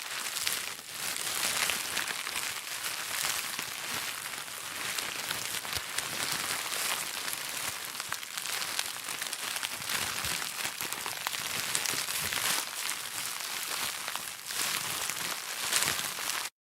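Plastic bag being crinkled and rustled by hand, a continuous dense crackle of fine crinkles that cuts off suddenly near the end.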